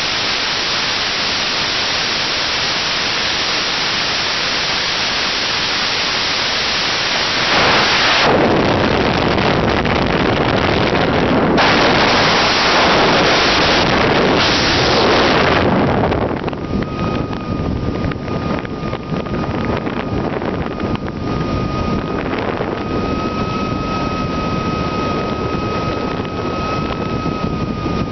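Airflow rushing over the onboard camera of a Swift S1 model aerobatic glider in flight, a steady loud hiss. It grows louder and rougher about eight seconds in, then drops off sharply around sixteen seconds. After that a thin steady whistle sits over a lower, uneven rush.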